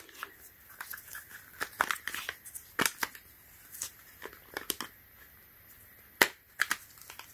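Hard plastic phone case and belt-clip holster clicking and knocking as the phone is pushed into the holster, with scattered handling taps and two sharper clicks about three and six seconds in.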